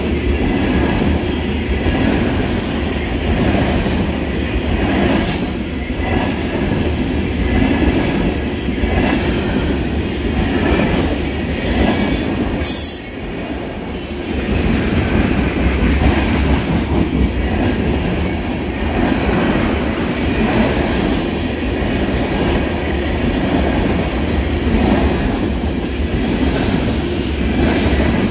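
Empty ethanol tank cars of a freight train rolling past close by: a steady loud rumble of wheels on rail, with brief high wheel squeals a couple of times.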